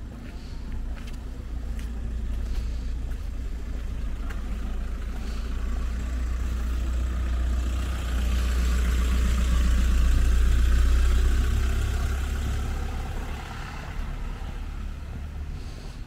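A road vehicle passing, its sound swelling over several seconds, loudest about ten seconds in, then fading away, over a steady low rumble.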